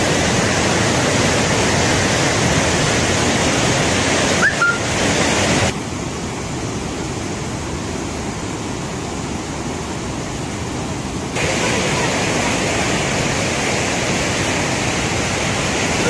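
Penna river in high flood, a loud steady rush of fast-flowing water. From about six to eleven seconds the rush turns duller and lower, and a short rising whistle-like note sounds just before that.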